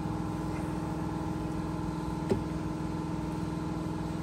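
Steady mechanical hum holding several fixed tones, with one sharp click a little over two seconds in.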